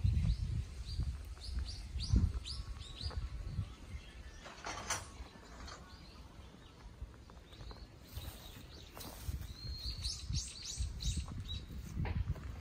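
Small birds chirping in quick runs of short, falling calls, twice, over irregular low thuds of footsteps on dry grass.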